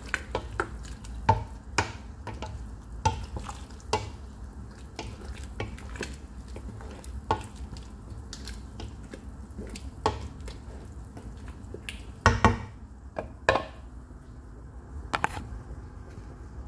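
A utensil knocking, clinking and scraping against the side of a large stainless steel stockpot while jute leaves (saluyot) in broth are stirred and mashed. The knocks come irregularly, with a louder cluster of clangs about twelve seconds in, over a low steady hum.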